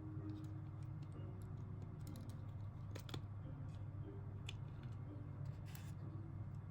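Scattered small clicks and taps of small parts being handled during disassembly of a hair clipper, a close pair about halfway through and single ones later, over soft background music.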